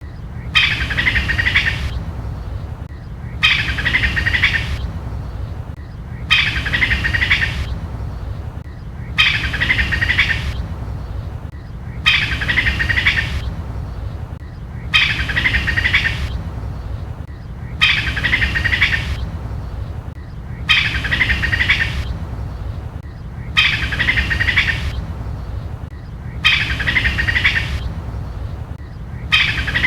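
Squirrel chattering in a rapid, choppy call of under two seconds, repeated at even spacing about every three seconds, over a steady low hum.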